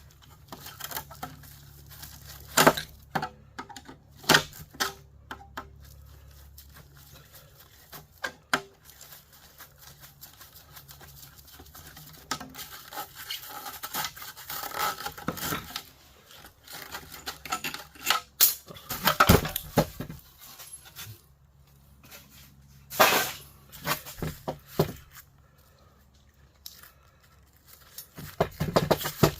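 Hand dismantling of a line conditioner's transformer: irregular metal clanks and knocks, with a longer stretch of rough tearing noise in the middle.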